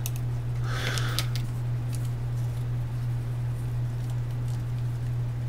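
Small plastic parts clicking and rustling as they are handled and pressed together: an optical-encoder housing being fitted onto a small yellow gear motor. A cluster of clicks comes about a second in, with a few more just after two seconds, over a steady low hum.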